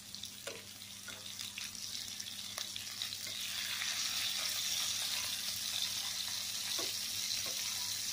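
Fish pieces sizzling as they shallow-fry in hot oil in a nonstick pan, with a few light clicks of metal tongs as the pieces are turned over. The sizzle grows louder about three seconds in, as the uncooked sides meet the oil.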